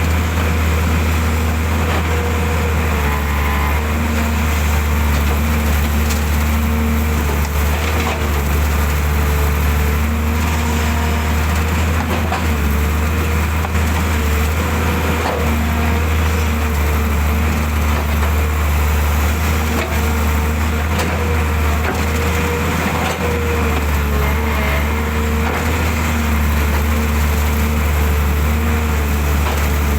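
Excavator's diesel engine running steadily while it digs, a loud low hum whose pitch dips and rises slightly now and then, with faint scattered knocks.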